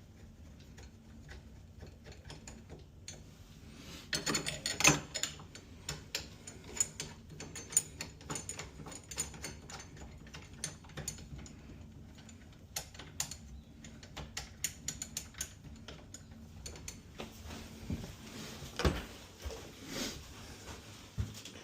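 Scattered clicks, taps and small knocks of screws and metal door-handle hardware being handled and fitted to a door, with a louder run of clicks about four to five seconds in.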